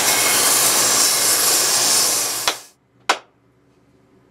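Steady noise of a power tool sanding a wooden hammer handle, which stops abruptly about two and a half seconds in. A single sharp knock follows about half a second later.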